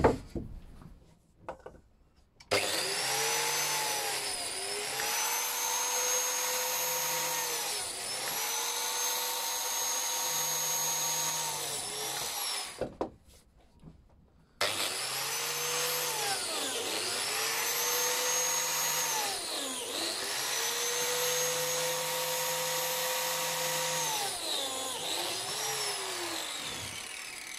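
Biscuit jointer running in two bursts of about ten seconds each, a high whine that sags in pitch three times in each burst as the blade plunges into the pine board's end to cut three biscuit slots. The whine winds down with a falling pitch after the second burst.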